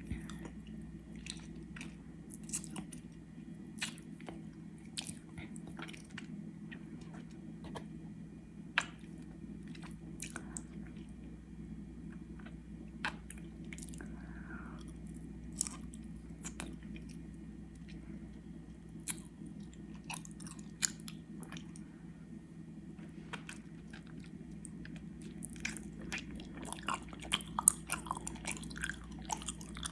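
Close-miked chewing of gummy worms: slow, sticky, wet mouth clicks and smacks at irregular intervals, quickening in the last few seconds.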